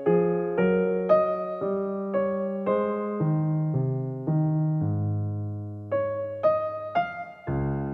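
Background music: a slow, gentle electric piano melody, notes struck about every half second, with a longer held low note midway.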